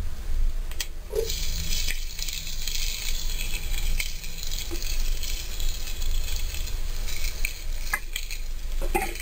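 Hot oil sizzling in a nonstick wok as boiled potatoes fry with sautéed onions, a steady hiss with a few light knocks; near the end a wooden spatula stirs the potatoes in the pan.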